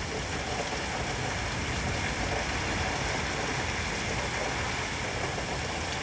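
Heavy thunderstorm rain coming down, a steady, even hiss.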